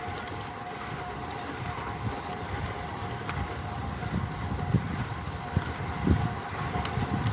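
Wind buffeting the microphone, with low rumbling gusts that grow stronger in the second half, over a steady faint high hum.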